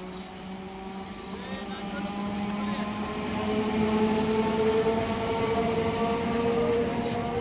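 Electric multiple-unit local train approaching and running past, its traction motors giving a steady whining hum that grows louder over the first half and then holds. A few short high hisses come near the start, about a second in, and near the end.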